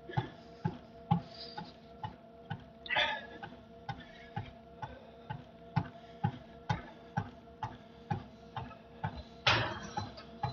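Gym cardio machine in steady use: sharp regular clicks about twice a second over a steady hum, with a short breathy rush about three seconds in and another near the end.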